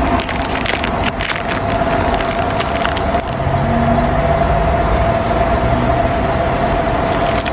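Steady hum of a car's cabin with one held tone running through it. Scattered crackling clicks come on top, most of them in the first three seconds, as a snack pack is handled and eaten.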